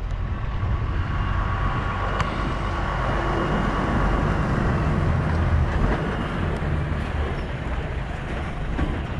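DAF XF truck's diesel engine running as the truck rolls slowly, a steady low engine noise with no break.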